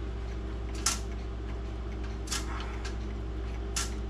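A pendulum clock ticking: a sharp tick about every one and a half seconds, over a steady low hum.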